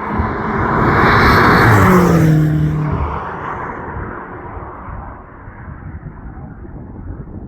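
BMW X5 M's twin-turbo V8, fitted with an aftermarket titanium exhaust, driving past. It swells to its loudest about two seconds in, the engine note falls in pitch as it goes by, then it fades to a low rumble.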